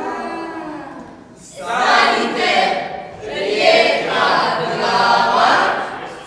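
Ensemble of mixed voices singing together without accompaniment. A wavering held tone comes first, then a brief dip about a second and a half in, then a louder passage of many voices.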